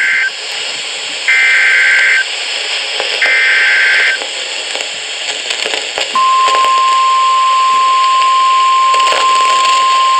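NOAA Weather Radio emergency alert broadcast over radio hiss. First come the end of one short burst of SAME digital header data and then two more, each about a second long. About six seconds in, the steady 1050 Hz warning alarm tone starts, announcing a new warning.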